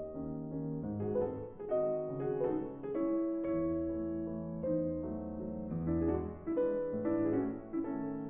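Background instrumental music, a slow melody of held notes.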